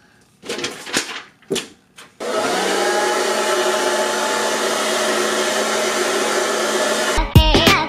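Handheld hair dryer switched on about two seconds in and running with a steady whirring hum for about five seconds, then cut off. A few faint short knocks of handling come just before it starts.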